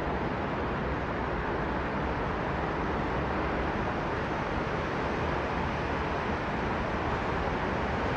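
Steady wash of road traffic from a busy city street, an even noise with no single vehicle standing out.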